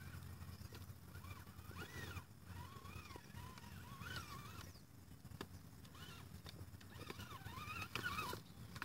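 Small RC rock crawler's electric motor whining faintly, its pitch rising and falling again and again as the throttle is worked while it climbs over rocks, with scattered light clicks and knocks from the tires and chassis on stone.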